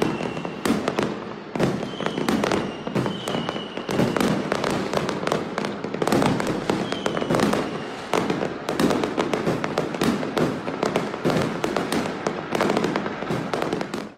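Fireworks going off: a dense, continuous run of bangs and crackles, many bursts overlapping.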